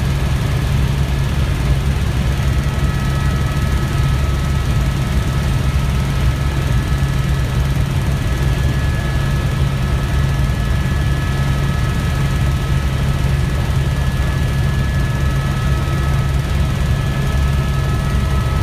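Tour helicopter's engine and rotors running steadily in cruise, heard from inside the cabin: a loud, even low rumble with a few faint steady whining tones above it.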